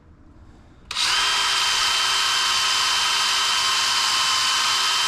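An electric power tool kicks on about a second in and runs steadily at a constant speed, a loud even whirr with a steady high whine.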